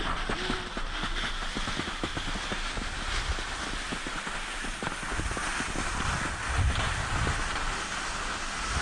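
Skis sliding and scraping over snow: a steady hiss with many small scratches. Low gusts of wind buffet the microphone about two-thirds of the way through.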